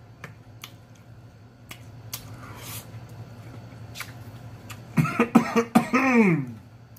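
A man chewing spicy sushi with faint mouth clicks, a breathy huff about two seconds in, then about five seconds in a short run of voiced coughs ending on a falling tone, brought on by the heat of the spicy roll in his throat.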